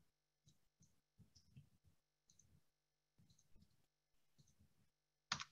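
Near silence with faint, scattered computer mouse and keyboard clicks, and one louder short click just before the end.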